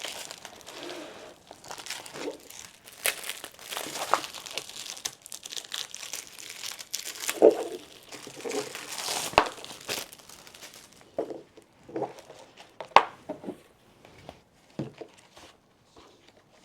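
Wrapping crinkling and tearing as it is handled and pulled off, then several sharp clicks and knocks.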